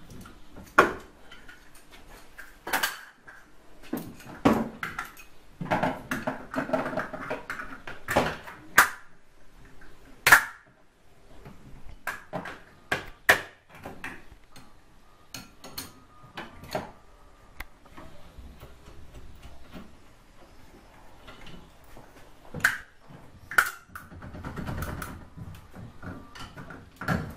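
Irregular metallic clicks, clinks and knocks as a spanner works on a Renault Mégane's windscreen wiper arms and the arms are pulled off, with quieter handling and scraping noises between the knocks.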